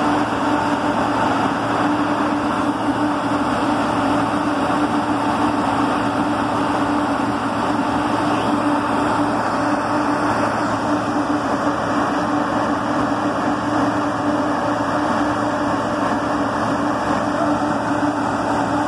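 Heavy crawler drill rig's machinery running steadily: a continuous loud mechanical drone with a steady hum tone that holds unchanged throughout.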